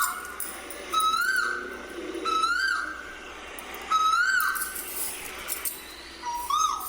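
A cuckoo calling: four clear whistled calls, each a short held note that rises and drops away, spaced unevenly a second or two apart.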